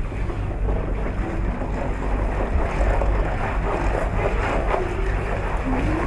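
Steady low rumble with a continuous rushing noise, like wind buffeting a microphone.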